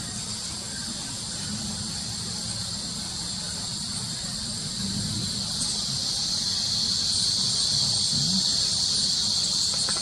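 Steady chorus of insects, a high shrill buzz that grows louder about halfway through, over a low background rumble.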